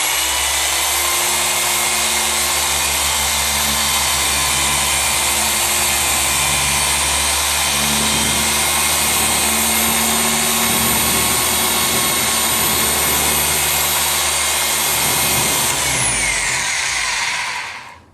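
Air-powered 3-inch Rupes random-orbital sander damp-sanding automotive paint to level orange peel: it spins up, runs at a steady hiss and whine, then winds down near the end.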